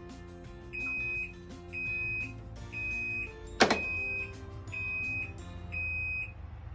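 Washing machine control-panel beeping: six high single-tone beeps, each about half a second long and about a second apart, over background music. A sharp knock comes about halfway through.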